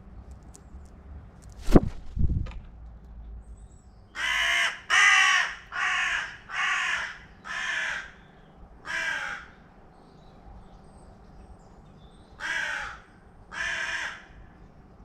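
Carrion crow cawing: a run of six harsh caws, then two more after a pause of about three seconds. Before the calls, a sharp knock followed by a smaller second one.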